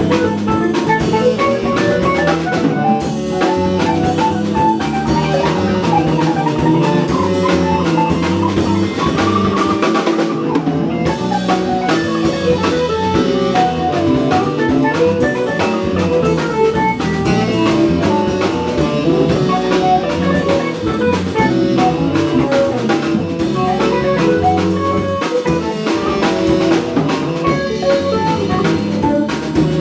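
Live band playing an instrumental: drum kit, electric guitar, bass, saxophone and synth guitar together, the drums prominent.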